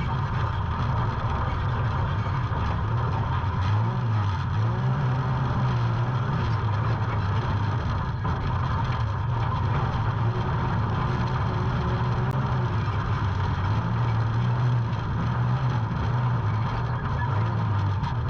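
A motor vehicle running steadily, its low engine note wavering slightly up and down over a constant hum.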